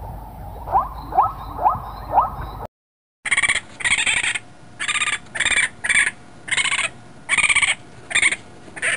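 Zebra calls: four short rising yelps about half a second apart over a steady background hiss. They cut off, and after a brief silence a raccoon gives a run of about nine loud, high chittering squeals.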